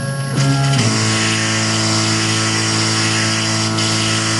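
Stepper motors of a Tormach PCNC 1100 CNC mill jogging the axes to lower a dial-indicator touch tool onto the workpiece: a steady pitched whine over a hiss. It starts about half a second in and shifts pitch just under a second in.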